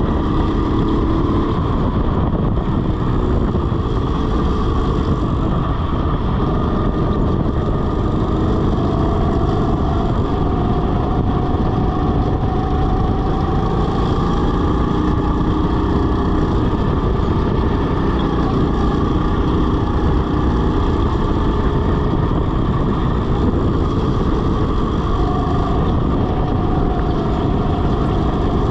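RiMO rental go-kart driven at speed: a steady motor drone under a heavy low rumble and rushing noise, with a pitch that climbs a few times as the kart accelerates out of corners.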